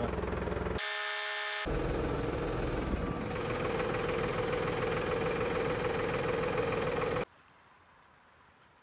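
Tractor engine running steadily, pulling a home-welded carrot loosener through the soil, with a short break about a second in. It cuts off abruptly about seven seconds in, leaving near silence.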